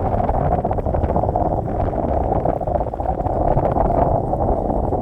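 Floodwater from heavy rain rushing steadily across the ground, an even noise with a low rumble beneath it.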